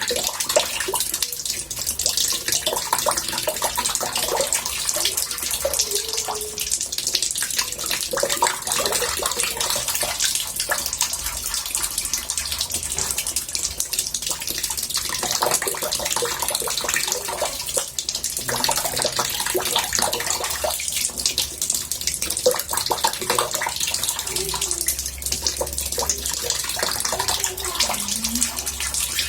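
Water running from a tap into a bathtub: a steady splashing, bubbling rush that goes on without a break.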